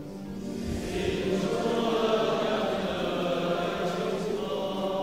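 A congregation chanting a short litany response together in unison, many voices blending. It swells in just after the start and fades away near the end.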